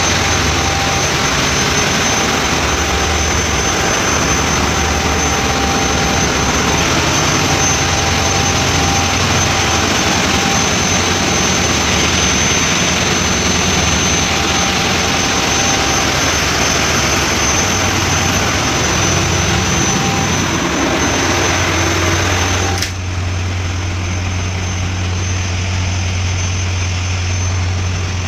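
Marine diesel engine running in a ship's engine room: a loud, steady noise with a thin high whine over a low hum. About 23 seconds in, the noise drops off suddenly to a muffled low hum, as heard from inside the closed engine control room.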